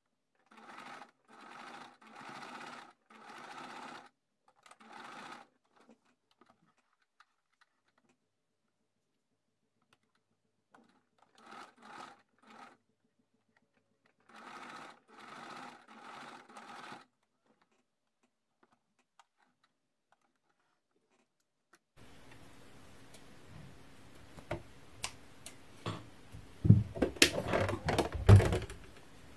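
Domestic electric sewing machine stitching a seam in short runs of one to three seconds, stopping and starting several times as the fabric is turned. Near the end, clicks, rustles and a few louder knocks as the sewn piece is handled and taken off the machine.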